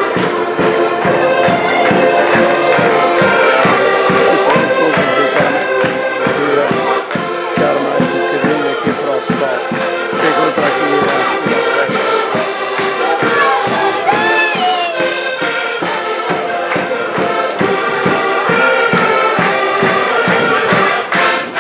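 Live folk band playing: many instruments holding dense, sustained chords over a steady beat, with crowd voices mixed in.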